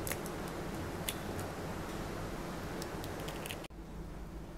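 Eggshells being cracked open by hand over a plastic bowl: a scatter of faint, short clicks and cracks over a steady hiss, which drops away near the end.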